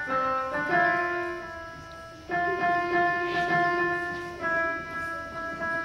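Digital piano played slowly: chords and single notes struck and held, each fading before the next, with fresh chords coming in about two seconds in and again near the end.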